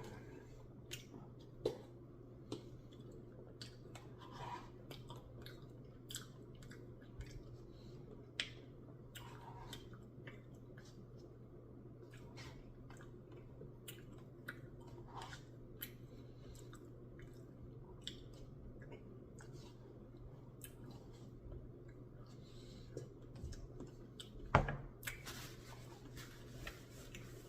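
Quiet eating sounds: chewing, with scattered small clicks and taps, as the Blizzard with its chunks of Reese's peanut butter cups is eaten, over a steady low hum. One louder knock near the end.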